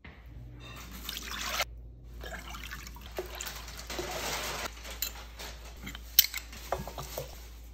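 Dark marinade pouring into a glass bowl, first from a second glass bowl, then a smaller pour from a small glass. Near the end come a few sharp clinks of a metal spoon against glass, the loudest about six seconds in.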